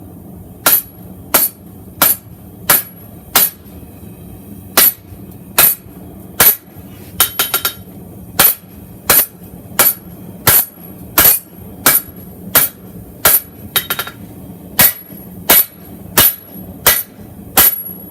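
Forging hammer blows on knife steel over an anvil, drawing down the handle section: steady, evenly paced ringing strikes about one and a half a second, twice broken by a quick run of light taps, over a steady low hum.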